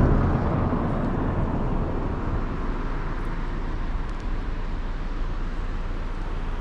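Steady road noise of a car under way: engine and tyre rumble with no distinct events.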